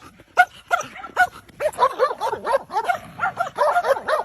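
A dog barking in single sharp barks, then breaking into a fast, continuous run of yipping, whining barks about a second and a half in: the dog is throwing a vocal tantrum at its owner.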